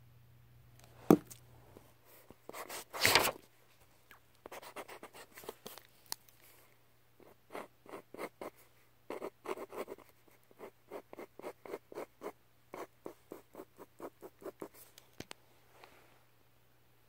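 A pen drawing on paper: runs of quick short strokes, several a second, from about four seconds in until near the end. Before them comes a sharp knock about a second in and a louder scrape around three seconds.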